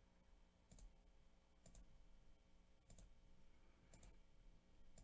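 Five faint computer mouse clicks, about one a second.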